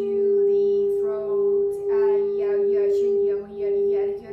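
Crystal singing bowl ringing one steady, sustained tone, with a woman's voice singing wordless light-language syllables over it from about a second in.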